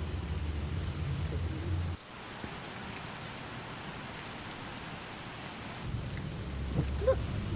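Rain falling steadily, with a low rumble underneath that cuts off abruptly about two seconds in and comes back near the end.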